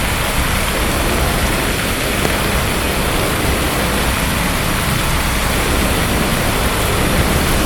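Heavy rain with gusting wind buffeting the microphone: a steady, loud rush of noise.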